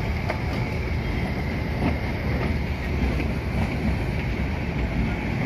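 Kangra Valley Railway narrow-gauge toy train running, heard from aboard a carriage: a steady low rumble of the coach and wheels, with wind on the microphone.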